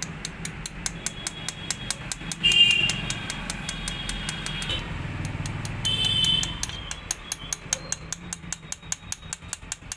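Rapid, even metallic tapping, about five light knocks a second, as a steel rocker-arm pin is worked into a motorcycle cylinder head with a T-handle tool, gently so the rocker's needle bearings are not disturbed. A high steady tone comes in twice, loudest about two and a half seconds in, over a low background hum.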